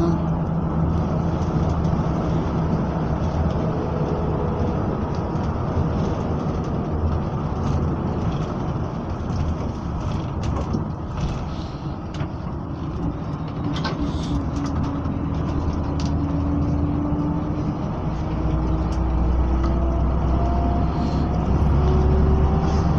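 Bus engine running and road noise heard from inside the cabin, with scattered rattles of fittings. A rising whine sets in about halfway through, and the engine grows louder and deeper near the end as the bus picks up speed.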